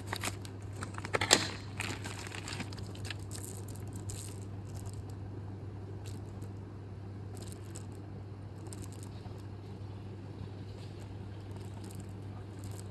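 Light clicks and rustles from a chainsaw chain being handled, a few louder ones in the first two seconds and fainter ones after, over a steady low hum.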